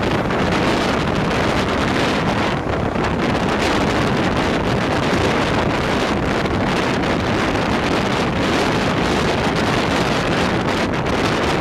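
Steady wind rushing over the microphone, with a continuous low rumble under it.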